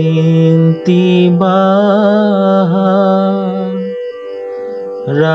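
Male voice singing an Assamese devotional ghosa to a traditional tune, drawing out long, ornamented notes over a steady drone. The voice pauses briefly about four seconds in while the drone carries on.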